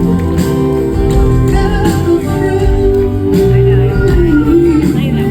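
Live band playing a soul-pop arrangement with a held, bending melody line over bass and drums.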